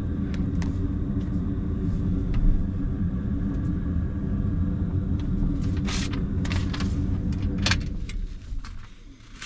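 Steady low drone inside a John Deere 9500 combine's cab with the ignition key switched on; it stops about eight seconds in. A few light clicks and paper rustles come shortly before it stops.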